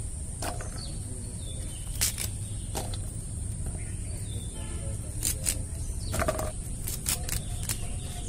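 Long beans being chopped on a boti blade, a crisp snap with each cut at an irregular pace, about eight cuts. A steady high-pitched whine runs behind, with a few faint bird chirps.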